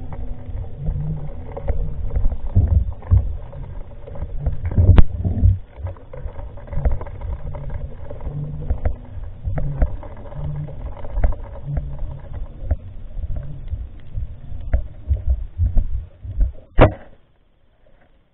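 Muffled underwater rumble with irregular knocks and clicks, heard through a camera's waterproof housing in open water. There is a sharp knock about five seconds in and another near the end, and then the sound cuts off suddenly.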